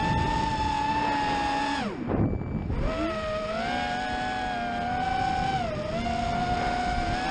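FPV racing quadcopter's brushless motors and propellers whining at a steady high pitch, heard from the onboard camera with air rushing past. About two seconds in the whine drops away as the throttle is cut, then climbs back within a second as power returns, with a shorter dip near six seconds.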